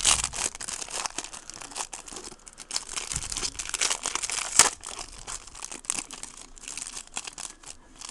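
The foil wrapper of a 2010 Topps Tribute baseball card pack being torn open and crinkled by hand: a dense, irregular run of crackles, with one sharp loud crackle about halfway through.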